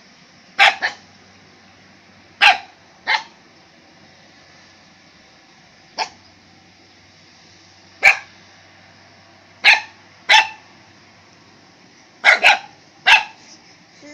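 A young dog barking in short, sharp yaps: about eleven barks at irregular intervals, some in quick pairs.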